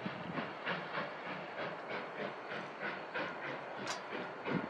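Steam locomotive 493, a K-37 class 2-8-2, chuffing in a steady rhythm of about three exhaust beats a second as it works its train toward the camera, with a hiss of steam. A brief high chirp comes near the end.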